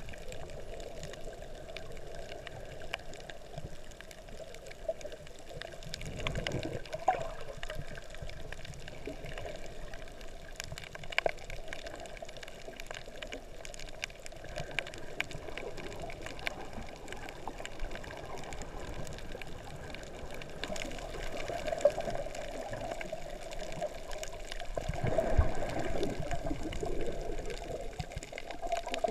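Underwater sound picked up by a camera held below the surface: water surging and sloshing, with many scattered sharp clicks. The surge grows louder about six seconds in and again near the end.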